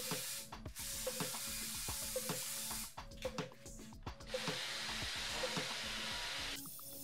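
Cordless drill spinning a brush attachment against a car headliner, scrubbing off old crumbling foam and glue: a rough hiss in two stretches with a short lull about three seconds in. Background music with a steady beat plays underneath.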